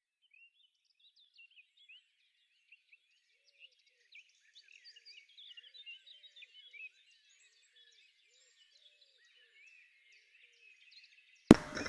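Faint birdsong: many small birds chirping and twittering, busiest about four to seven seconds in and thinning out after that. A sharp click near the end.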